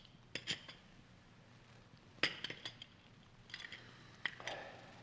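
Radio sound effect of china coffee cups and saucers clinking as coffee is served: a few light clinks, the loudest a little over two seconds in, and more near the end.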